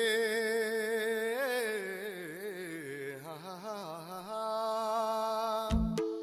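A recorded song's slow vocal opening: one voice holds long, wavering sung notes over a steady drone, with no beat. A short low thump comes near the end.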